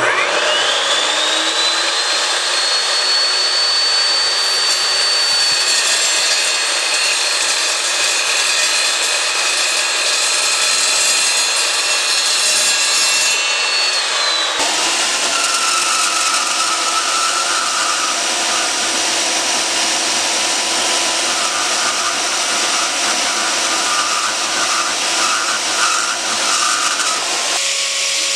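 Evolution S355CPSL metal-cutting chop saw spinning up with a rising whine and cutting through steel angle, its pitch dipping slightly near the end of the cut. About halfway through, the sound switches abruptly to a band saw cutting the same angle, with a lower, steady whine. Near the end it switches again to an angle grinder.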